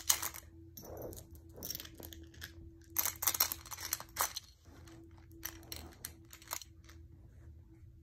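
Irregular crinkling, rustling and scraping of hands working craft materials on a tabletop: a peel-and-stick vinyl decal being smoothed onto a metal ice bucket, and seashells and glass gems being set into a glass candle holder. The bursts come in clusters, thin out in the last second, and sit over a faint steady hum.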